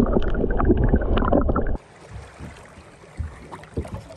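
Loud, muffled rushing and crackling of water picked up by a submerged camera as a hooked grouper is brought up. Under two seconds in it cuts abruptly to much quieter open air, with faint water and wind noise and a few soft knocks.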